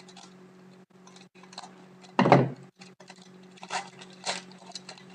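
Trading cards and a foil pack being handled: a louder bump and rustle about two seconds in, then lighter card slides and rustles near the end, over a steady low electrical hum.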